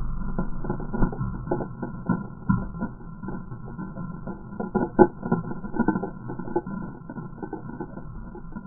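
Irregular crackling, ticking and pattering of debris and embers falling right after a Tannerite explosion, over a low rumble that fades over the first few seconds. One sharper pop stands out about halfway through.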